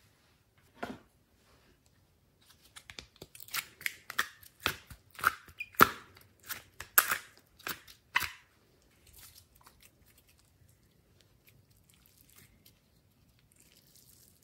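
A run of about a dozen sharp, sticky crackles and snaps as set coloured slime pieces are pried out of a plastic ice-cube tray. A single snap comes about a second in, and faint scattered ticks follow the run.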